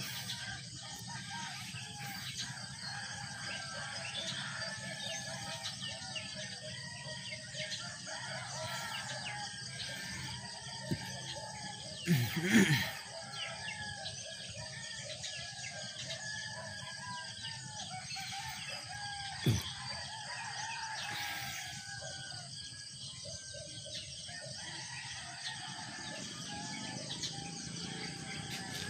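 Small birds chirping throughout and a rooster crowing, with the loudest call about twelve seconds in.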